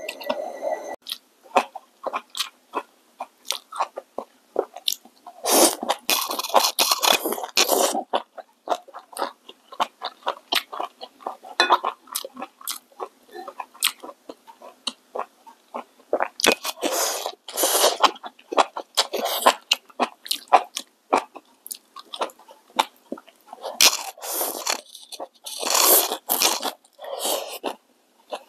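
Close-up eating sounds: noodles slurped from a bowl in three long, noisy slurps, with wet chewing and small mouth clicks in between.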